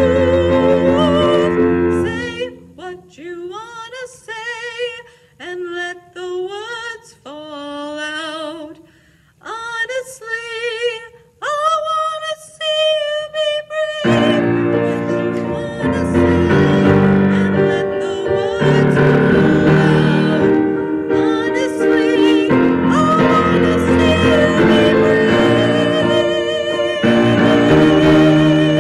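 Music: a woman singing with vibrato. Early on the accompaniment drops out and she sings alone in short phrases, then about halfway through the piano and backing come back in under her.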